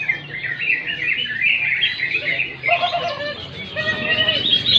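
Cucak ijo (greater green leafbird) singing a fast, continuous warbling song of chirps and twittered phrases, with a few lower whistled notes about three seconds in and again near the end.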